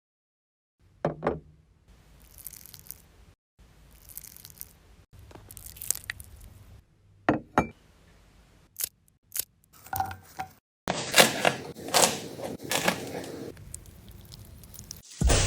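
Kitchen food-preparation sounds: a string of short knocks, snips and scrapes with handling noise, broken by a few abrupt silent gaps.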